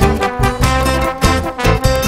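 Upbeat background music with brass instruments, a bass line and a steady beat.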